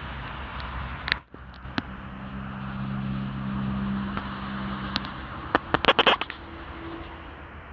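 Steady low hum of a vehicle engine, swelling for a few seconds, under outdoor street noise. A quick run of sharp clicks and crackles comes about six seconds in.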